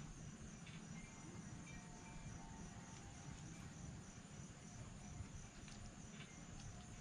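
Faint outdoor ambience dominated by a steady, high-pitched insect trill, with a few faint ticks.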